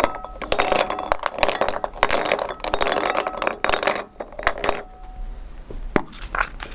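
Plastic draw balls rattling and clinking against a glass bowl as they are stirred, dense for about four seconds, then a few separate clicks as one red ball is handled.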